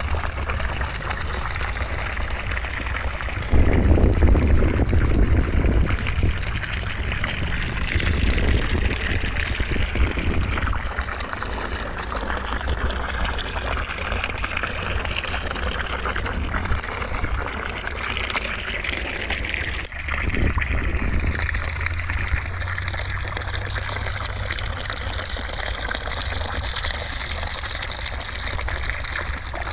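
Steady rushing white noise over a deep rumble. The rumble swells for a couple of seconds about four seconds in, and the noise briefly dips about twenty seconds in.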